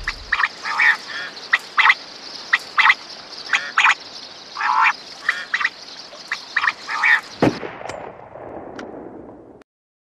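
A run of short animal calls, often in pairs, about one or two a second, over a steady high hiss. A single thump comes about seven and a half seconds in, and the sound then fades out.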